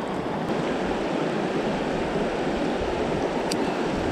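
Shallow river rapids rushing steadily over rocks.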